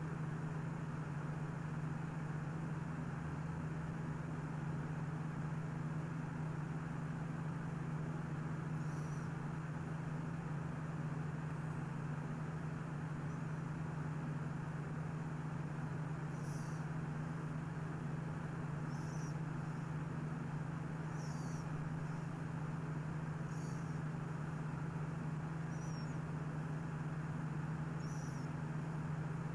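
A steady low hum over a faint noise bed, with faint high chirps repeating every two seconds or so from about a third of the way in.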